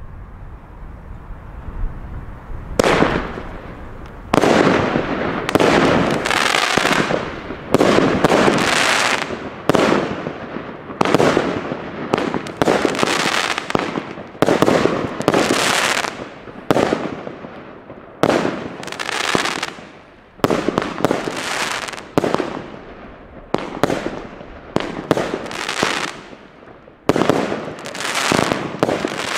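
Firework cake ('Spinning Ufo To Ti-Salute') firing shot after shot, starting about three seconds in: a sharp loud report roughly once a second, each fading out over about a second before the next.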